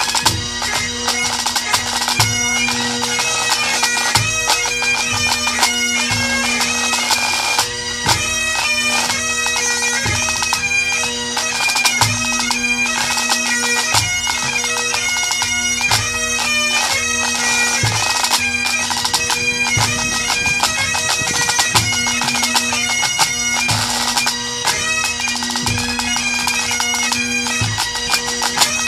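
A pipe band playing: bagpipes sounding their steady drones under the chanter melody, with the drum corps' pipe-band snare drums rolling and striking in dense rhythm and tenor and bass drums beating about once a second.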